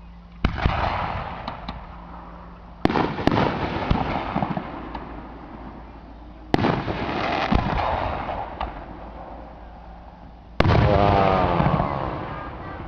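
Aerial fireworks shells bursting four times, each a sudden loud bang that trails off into a rumbling echo over a couple of seconds, with a few sharp crackles after some of the bursts.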